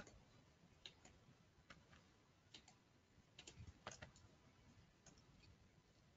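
Faint computer mouse clicks, scattered about once a second, over near-silent room tone.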